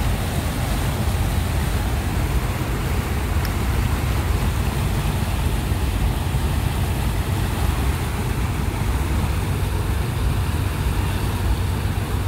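A tall ship's engine and propeller churning the water as it manoeuvres to dock: a steady low rumble under a wash of water noise.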